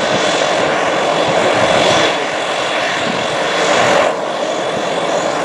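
Twin Pratt & Whitney Canada PW118-series turboprop engines of an Embraer 120 Brasilia running at taxi power: a steady propeller drone with a thin high turbine whine. The sound dips slightly about four seconds in.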